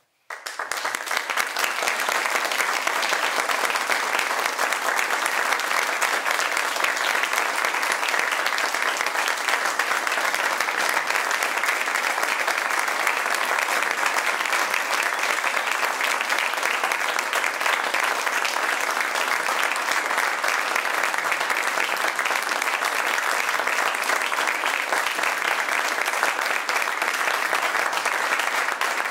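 Audience applauding, breaking out suddenly and then holding steady.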